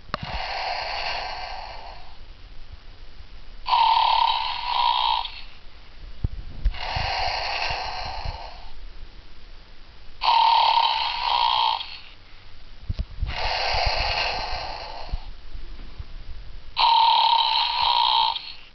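Slow, regular snoring: six snores about three seconds apart, alternating between a lower rasp and a higher buzz, the "rrrr… bzzzz" of breathing in and out while asleep.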